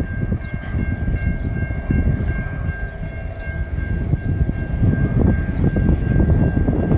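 Coal hopper wagons rolling past at low speed: a low rumble and clatter of wheels and couplings, with a steady high-pitched squeal of wheels grinding on the curve.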